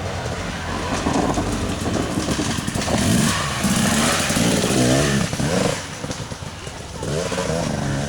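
Off-road dirt bike engines revving up and down as they ride past, loudest for a couple of seconds in the middle.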